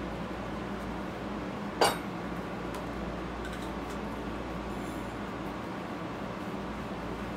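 Steady low background hum of a workshop, with one sharp clink about two seconds in and a few faint ticks later, as welding gear is handled.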